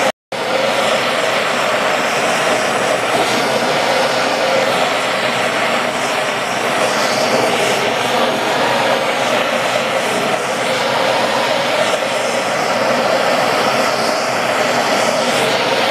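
Hand-held propane torch burning with a steady hiss while heating aluminum for brazing, broken only by a brief gap just after the start.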